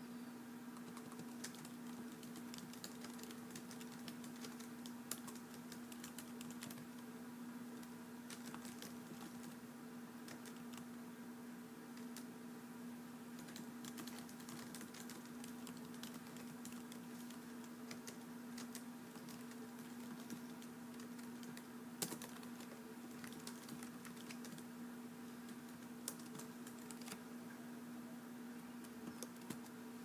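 Typing on a computer keyboard: a continuous, irregular patter of key clicks, with a few louder keystrokes standing out. A steady low hum runs underneath.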